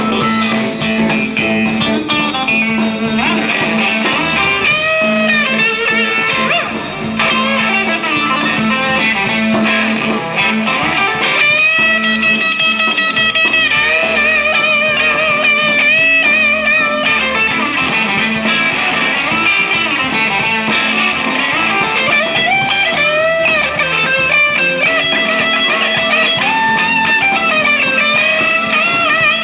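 A live blues band playing an instrumental break led by electric guitar, with held notes that bend and waver over a steady low accompaniment.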